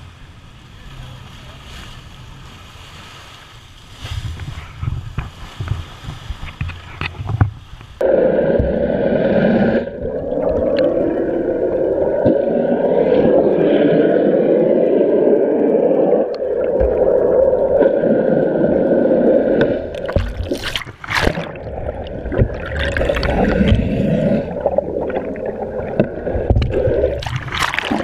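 Water rushing and churning around an action camera held underwater beside a moving boat: a muffled, dense rush that comes in suddenly about a third of the way in, with sharp splashes near the end as the camera breaks the surface. Before that, a quieter hiss of wind and sea.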